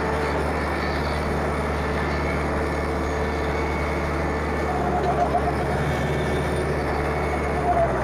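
Compact tractor engine running steadily under load, powering a PTO-driven Woodland Mills stump grinder whose cutter wheel chews into a pine stump and throws off wood chips with a continuous grinding noise.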